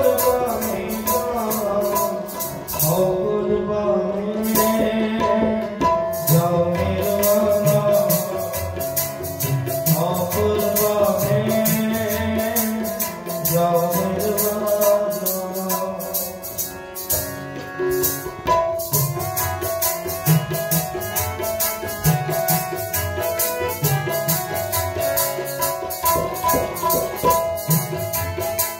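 Harmonium and tabla playing kirtan music: the harmonium holds steady notes while the tabla keeps a dense, fast rhythm, its low notes sliding up and down in pitch.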